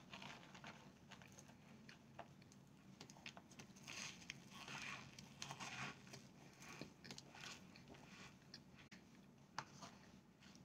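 Faint crunching and chewing of compressed cornstarch chunks, with fingers scraping and breaking up the powder in a plastic container; the crunching is busiest about four to six seconds in.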